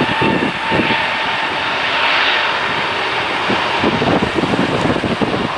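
Airbus A320neo's Pratt & Whitney PW1100G geared turbofan engines at takeoff power as the jet rolls down the runway: a loud, steady jet roar. A steady whine fades out within the first second.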